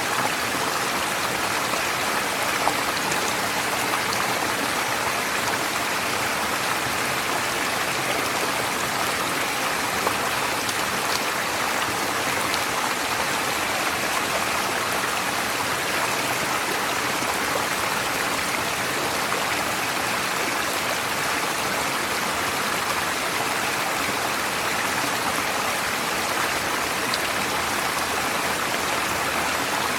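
Forest stream flowing steadily: a constant, even rush of running water.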